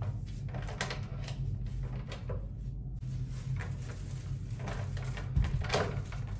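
Hotel room door being worked by its lever handle: a series of latch clicks and handling rustles, then a thud and a sharp click near the end as the door shuts. A plastic food bag rustles in the hand, over a steady low hum.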